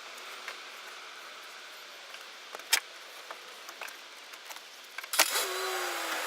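Scattered clicks and clacks of hand work on a car's interior trim and screws, one louder near three seconds; just after five seconds a loud click is followed by a steady humming whine that dips slightly in pitch.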